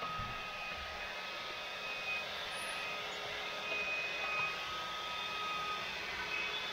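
Cordless handheld vacuum cleaner running steadily, a whine over the hiss of air as its nozzle sucks up dirt from the floor.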